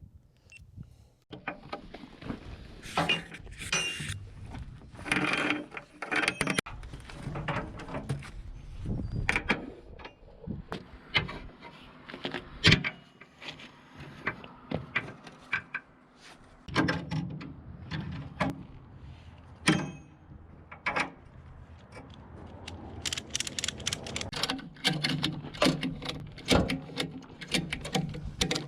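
Metal tie-down gear clanking and rattling in irregular sharp knocks as a load is chained down on a lowboy trailer.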